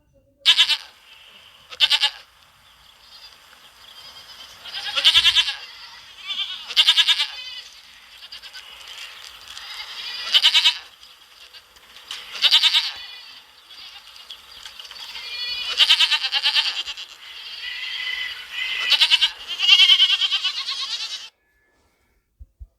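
Goat bleating repeatedly: about eight quavering bleats, a second to a few seconds apart, some short and some drawn out. They stop shortly before the end.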